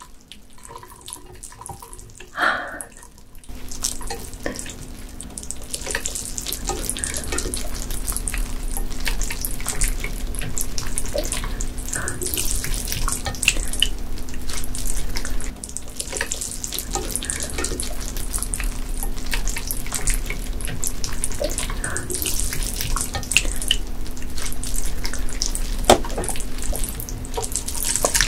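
Live ice gobies wriggling wet in a metal mesh strainer: a steady, dense, splashy crackle with water dripping through the mesh. It starts a few seconds in. Near the end, sauce is poured onto the fish from a glass jug.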